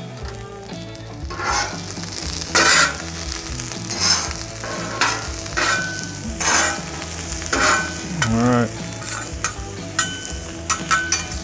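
Sliced red onions sizzling in oil on a Cuisinart 360 flat-top griddle, with two metal spatulas repeatedly scraping and tapping the cooktop as they turn the onions.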